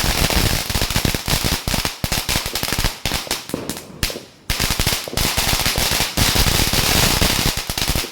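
Diwali firecrackers going off in a rapid, dense run of bangs and cracks, with a short lull about four seconds in.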